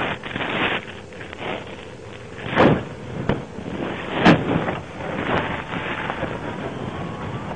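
Rough rumbling noise on a police car's dash-cam audio, broken by several sudden muffled thumps; the loudest come about two and a half and four seconds in.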